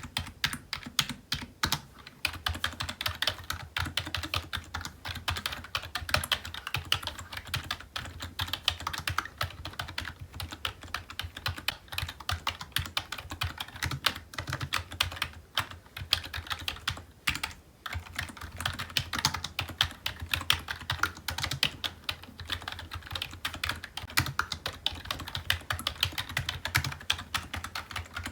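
Continuous fast typing on a computer keyboard, a dense stream of key clicks with a couple of brief pauses midway.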